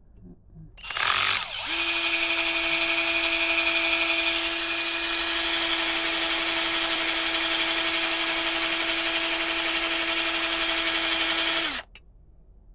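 20-volt cordless drill boring into a steel bed-frame rail. It spins up about a second in, runs at a steady pitch for about ten seconds, then stops suddenly. The bit is slow to get through the metal.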